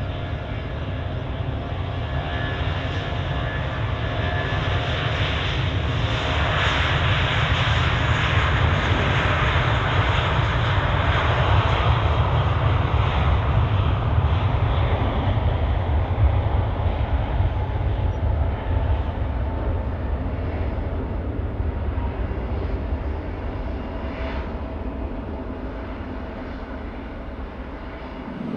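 Jet airliner engines roaring as a large plane passes, with a steady whine over the roar. The sound swells to its loudest about halfway through, then slowly fades.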